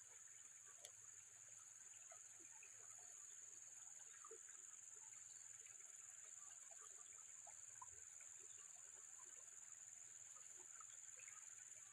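Near silence: a faint, steady high-pitched drone of night insects, with scattered faint ticks.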